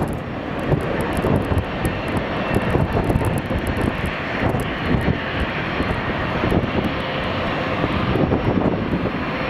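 McDonnell Douglas MD-83 on short final, its two rear-mounted Pratt & Whitney JT8D-219 turbofans running steadily at approach power as it flares low over the runway.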